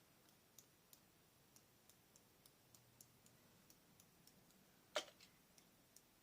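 Faint scattered clicks and ticks, with one sharper click about five seconds in, from a hand-pumped mist spray bottle of gold shimmer spray being worked.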